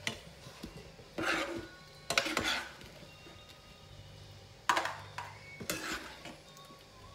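Kitchen dishes and utensils being handled and set down: four short clatters, about a second in, two seconds in, and twice near the end, over a faint steady low hum.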